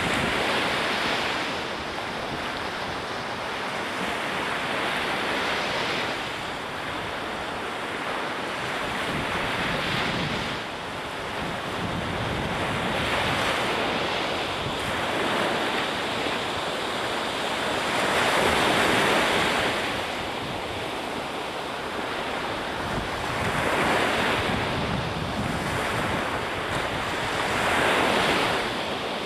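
Ocean surf breaking in repeated surges a few seconds apart, with wind buffeting the microphone.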